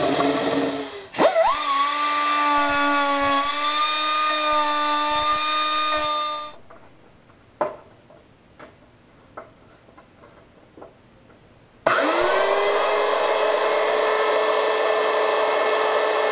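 Electric hand drill running as it bores through a melamine board, dipping and spinning back up about a second in, then winding down after about six seconds. A few light clicks follow, then about twelve seconds in a router motor starts, its whine rising and settling into a steady run.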